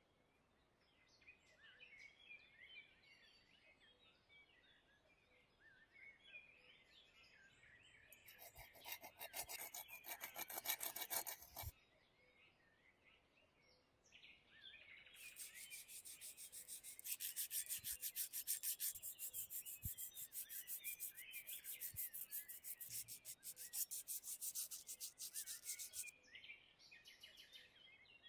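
Quick rasping rubbing strokes of abrasive on the diecast metal body of a model pickup truck: a short spell about a third of the way in and a longer one through most of the second half. Birds chirp faintly in the background.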